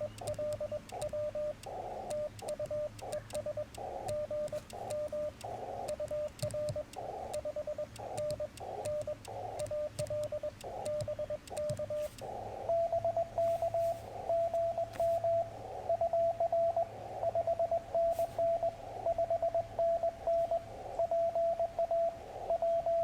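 Morse code tones from a Yaesu FT-891 ham transceiver during a CW contact exchange, a steady-pitched tone keyed in dots and dashes. For the first half, bursts of band hiss fill the gaps between characters. About halfway through, a louder, slightly higher-pitched keyed tone takes over, with clean gaps.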